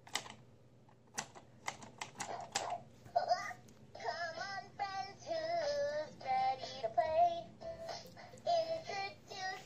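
A few short clicks and blips, then a Linkimals beaver toy's small speaker plays a song in a synthesized child-like singing voice from about four seconds in.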